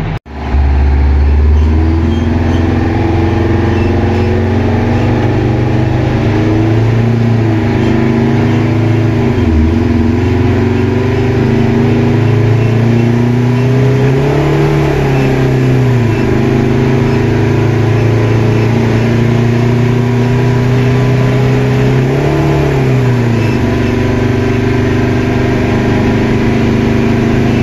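Straight-piped Detroit Diesel 8V92TA two-stroke V8 diesel, with blower and turbo, pulling the fire truck down the road, heard from inside the cab. The engine note climbs and drops back a few times as the truck accelerates.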